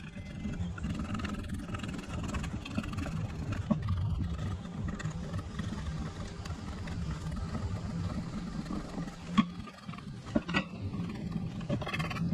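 A motor running steadily with a low hum, with a few sharp knocks in the second half.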